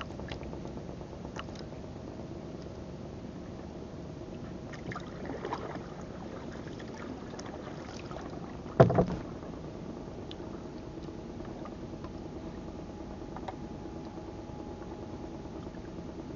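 Longline being hauled in by hand over the side of a small outrigger boat: faint handling clicks over a steady low background, with one loud knock about nine seconds in.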